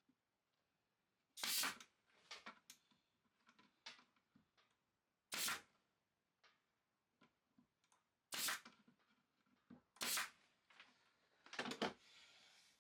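Five short, sharp knocks a few seconds apart, with a few fainter taps between them: nails being driven into a plywood drawer box.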